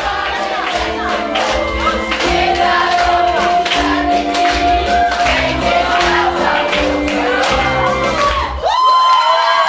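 A vocal group singing a lively song over an accompaniment with a steady beat; near the end the beat stops and the voices hold a long final note.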